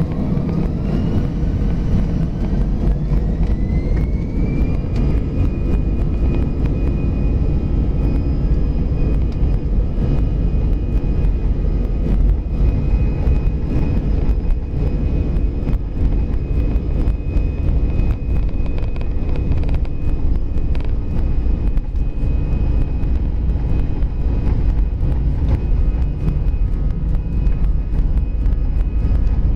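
Airbus A320 jet engines spooling up to takeoff thrust during the takeoff roll, heard from inside the cabin. A whine rises over the first few seconds and then holds steady above a loud, continuous rumble, with frequent small knocks and rattles.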